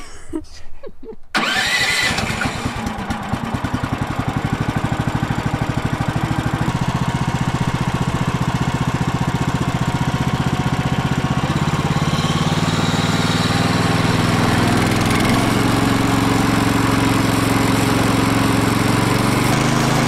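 Kohler gasoline engine on a Woodland Mills HM130MAX portable sawmill starts about a second in, now with its fuel valve turned on, and keeps running with an even beat. It grows a little louder and steadier about twelve seconds in.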